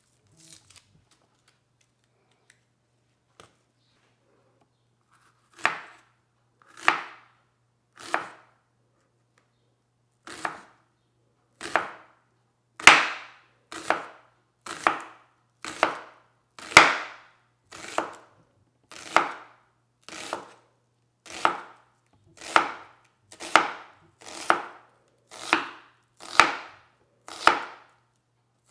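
Kitchen knife cutting food on a cutting board, a steady run of slicing strokes about one a second. The strokes start about six seconds in, after a few faint clicks.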